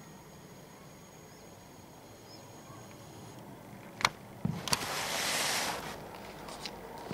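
A single shot from a Logun Solo PCP air rifle: a sharp crack about four seconds in, the loudest sound, followed by a couple of knocks and about a second of hissing noise.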